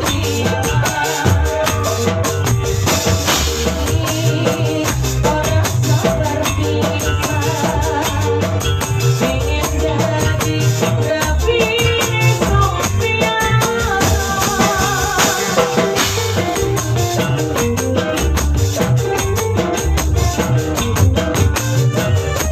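Band music with a steady beat: a hand-played tambourine jingling in quick strokes over drums, bass and a melodic lead instrument.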